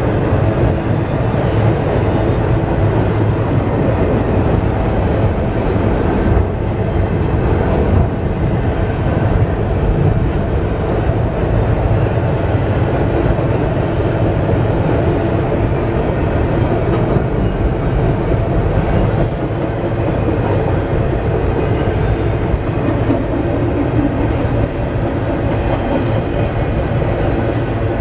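Intermodal freight train of double-stack container well cars rolling across a steel girder bridge: a steady, continuous rumble of wheels on rail.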